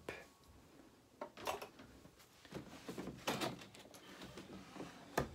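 Cardboard box flaps being pulled open and handled: several short scrapes and rustles of cardboard, the busiest stretch about three seconds in, with a sharp tap near the end.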